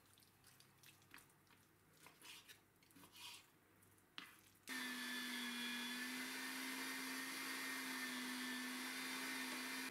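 Faint knife taps on a wooden cutting board, then about halfway through an electric meat grinder switches on and runs steadily with a constant hum, mincing raw chicken breast.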